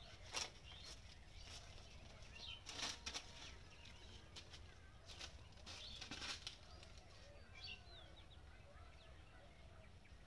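Faint, irregular footsteps crunching through dry grass and fallen leaves, growing sparser as the walker moves away, with a few faint bird chirps in the second half.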